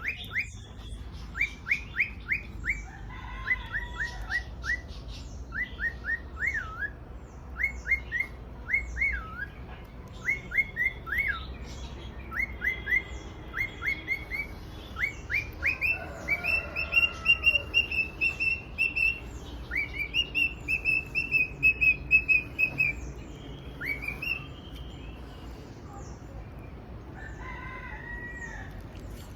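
Male cockatiel singing its courtship song to a female: runs of quick whistled chirps, turning about halfway through into longer held whistles, then a few scattered calls near the end.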